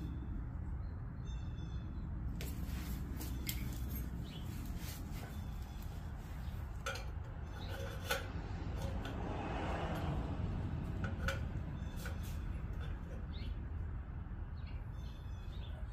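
Scattered metal clinks and taps of hand tools and exhaust pipe being handled, over a steady low hum.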